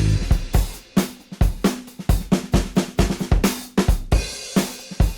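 Background rock music: a drum kit playing a beat on its own, kick drum, snare and cymbals, with about four hits a second, as the guitars cut out at the start.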